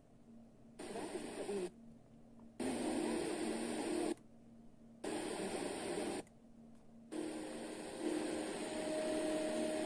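FM radio tuner being stepped up the dial: the audio cuts out four times, each for about a second, as the tuner mutes between frequencies. Between the cutouts come hiss and weak, noisy station audio, and from about seven seconds in a weak, hissy station stays on.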